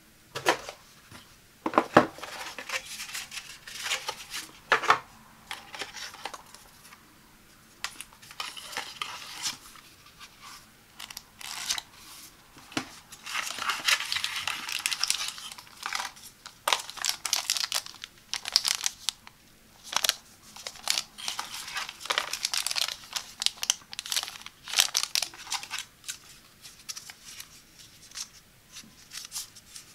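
Cardboard box insert and paper and plastic packaging being handled and opened by hand: sharp taps and knocks mixed with rustling and crinkling, with a long stretch of rustling about halfway through. The loudest taps come about two seconds in.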